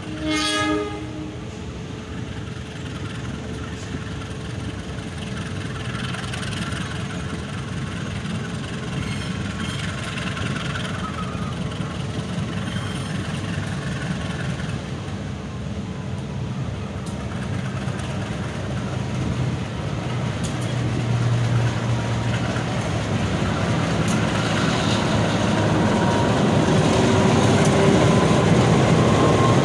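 Diesel-electric locomotive approaching at walking pace, its engine rumble growing steadily louder as it draws alongside, with a faint steady wheel squeal in the later part. A brief horn blast sounds at the very start.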